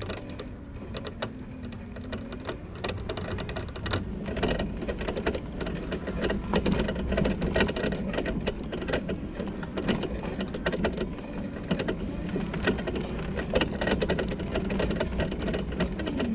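Electric mobility buggy driving with its motor humming, over a dense run of rapid clicking and scraping that thickens and grows louder after the first few seconds. The scraping is a rub from something caught underneath the buggy, as the rider suspects.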